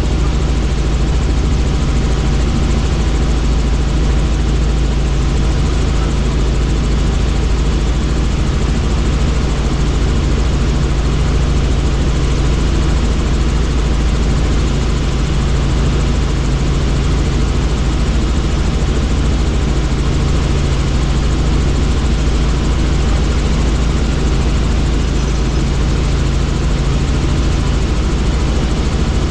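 Helicopter in flight: steady, loud engine and rotor noise with a constant low hum and a few held tones, unchanging throughout.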